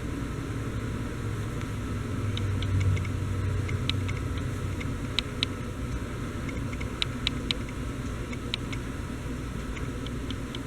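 Washing machine running: a steady low rumble and noisy hum. A scattering of sharp, light ticks sounds over it.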